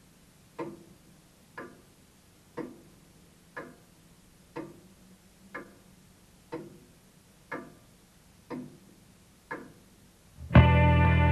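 Clock ticking steadily, about one tick a second. Near the end, loud music with sustained tones starts suddenly.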